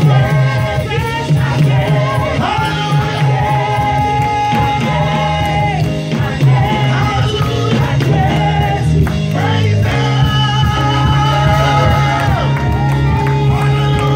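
Live gospel praise music: a choir and worship band singing long held notes over keyboard and drums, with a steady bass line.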